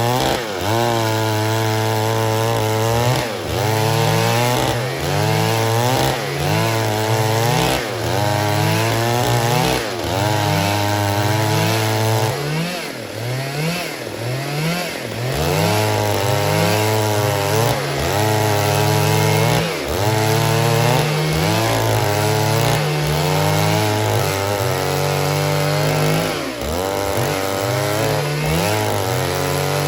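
Stihl MS 382 two-stroke chainsaw cutting wood at full throttle, its engine pitch dipping under load and climbing back again and again, about once a second. The engine eases off briefly about halfway through.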